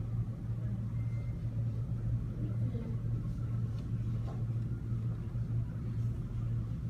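A steady low machine hum with a few faint ticks and small knocks over it.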